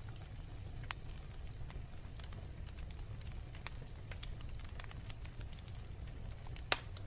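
Wood fire burning in a fireplace: a steady low rumble of flames with scattered crackles and snaps, and one sharp loud pop near the end.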